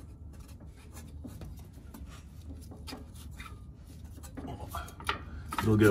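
Faint light clicks and rubbing of a Porsche Boxster S 986 transmission's shift selector lever and the ball-socket end of a new shifter cable being moved by hand to check the lever's travel, over a low steady hum.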